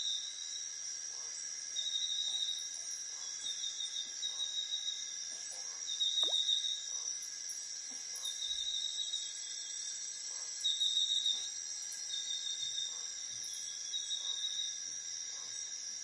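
Steady high-pitched drone of forest insects, with short buzzy insect calls repeated every second or two.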